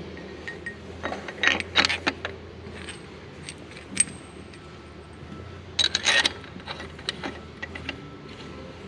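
Light metallic clinks and taps as a steel connecting rod cap and its bolts are handled and set onto a crankshaft journal. They come in short clusters about a second in, then a single sharp click around four seconds, and a louder cluster around six seconds, over a steady low hum.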